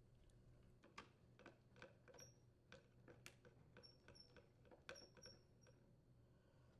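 Faint, irregular clicks and small squeaks of a Torx screwdriver driving screws back into a hedge trimmer's plastic handle, the larger screws threading through nuts.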